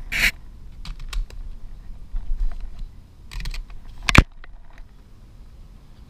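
Handling noise of gear rubbing and knocking against the camera: scattered clicks, scrapes and rustles, with a rustling burst at the start and a sharp knock, the loudest, a little after four seconds in.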